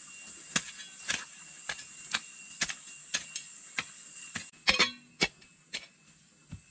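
Sharp knocks or chops repeating about twice a second, with a louder double knock a little past the middle, over a steady high drone of insects.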